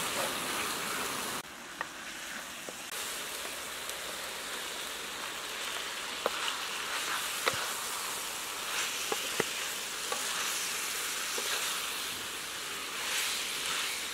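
Spice paste and chunks of eel sizzling as they fry in a black wok, with a wooden spatula stirring and scraping through them and a few sharp clacks of the spatula against the pan. The sizzle drops in level suddenly about a second and a half in.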